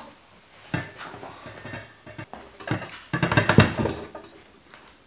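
Handling noise from a stainless steel brewing kettle and its cardboard packaging: a sharp knock just under a second in, scraping and rustling, then a cluster of loud metallic knocks and clatters about three seconds in that fades away.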